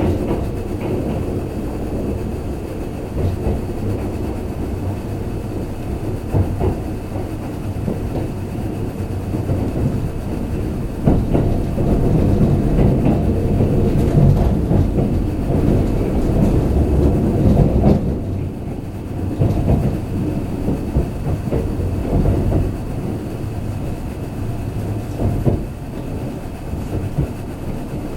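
Kintetsu limited express train running at speed, heard from inside the passenger car: a steady rumble of wheels on rail with clickety-clack from the rail joints, louder for several seconds in the middle.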